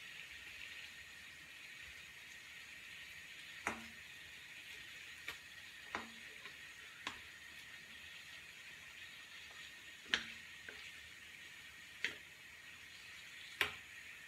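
Pork ribs frying in a pan with a faint steady sizzle, while a wooden spatula knocks sharply against the pan about seven times as they are stirred.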